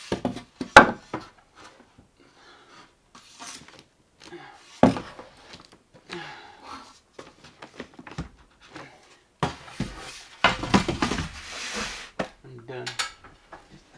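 Wooden boards and tools being handled: several sharp knocks, then a longer stretch of scraping and clattering near the end.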